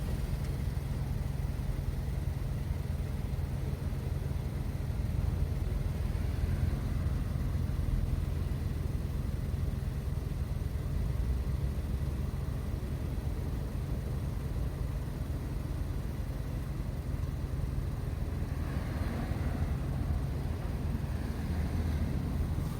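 Road traffic: a steady low engine rumble, with vehicles passing by about six seconds in and again near the end.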